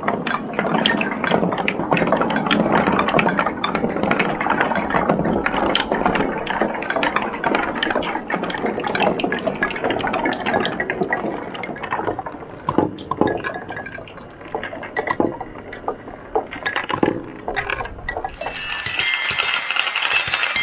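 Golf balls and other balls rolling and knocking down a wooden ramp course of OSB board and 2x4 baffles. A continuous rolling rumble with many knocks thins out about twelve seconds in to scattered knocks. In the last two seconds this gives way to bright clinking of small steel balls on a plastic marble run.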